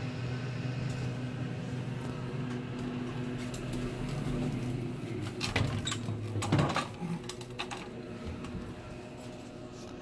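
Steady electrical hum of a Delaware hydraulic elevator. A few knocks and clicks come near the middle, the loudest about six and a half seconds in, and the hum then stops.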